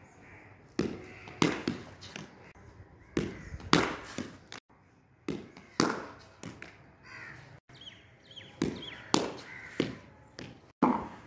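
A cricket ball knocking on a hard tiled floor and being struck by a wooden cricket bat: a dozen or so sharp knocks, some in quick pairs, spread irregularly.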